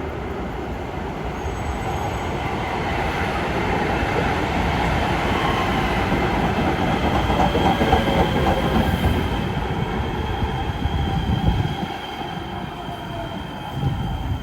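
A rail train running past, with the steel wheels squealing on the track in a thin high steady tone over the rumble. It grows louder toward the middle and eases near the end.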